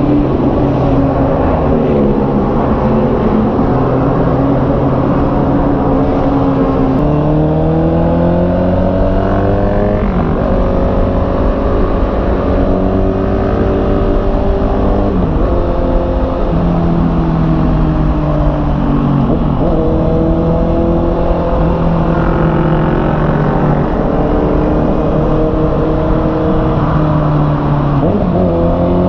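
Honda CB650R's inline-four engine under way, its note climbing as it accelerates and dropping sharply at each gear change, several times over.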